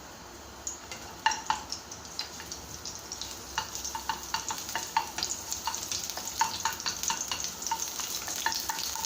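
Garlic frying in hot oil, sizzling with sharp crackling pops that start about a second in and grow steadily denser and louder.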